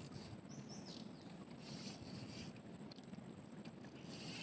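Faint outdoor background: a steady thin high-pitched tone over soft hiss, with brief hissing swells about two seconds in and again near the end.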